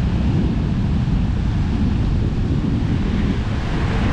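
Wind buffeting the microphone over the steady rush of ocean surf.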